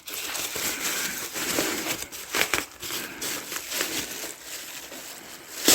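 Packaging crinkling and rustling as parts are pulled from a box, with many small crackles and a sharp knock near the end.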